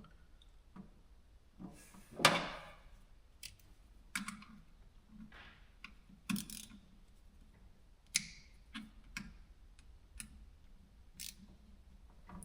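Scattered light clicks and knocks of small parts being handled, at irregular intervals, the loudest about two seconds in.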